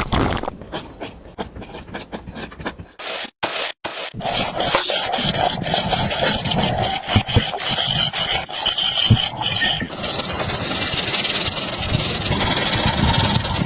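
Scraping and rubbing of a tool against a hard surface, choppy with a couple of short breaks at first, then steadier and louder from about four seconds in.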